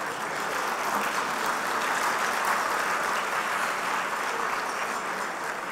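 Audience applauding, swelling about a second in and easing off near the end.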